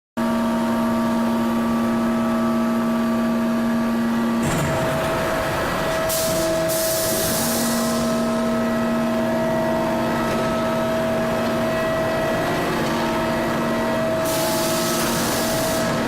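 Induction billet heating furnace running: a loud, steady electrical hum of several tones at once, the lower tone dropping out for a few seconds and returning. Two loud bursts of hissing, about six and fourteen seconds in, each lasting a second or two.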